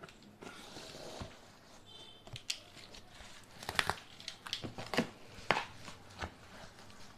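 Cardboard box flaps and styrofoam packing rustling, creaking and scraping as a large television box is opened by hand. There is a short squeak about two seconds in, and a cluster of sharp scrapes between about three and a half and five and a half seconds in.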